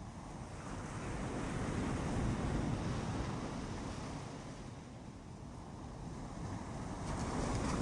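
Ocean waves on a beach: surf swells to a peak about two seconds in, eases off, then a second wave builds near the end.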